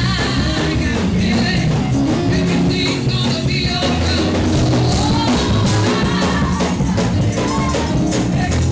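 Upbeat music with a drum kit, a steady beat and singing.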